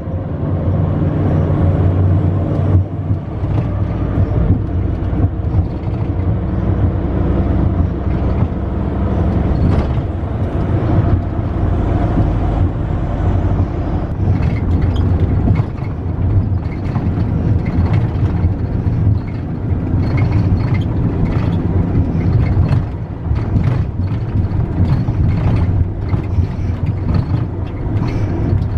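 Steady low drone of a Boeing 737-700 airliner, with scattered clicks and knocks throughout.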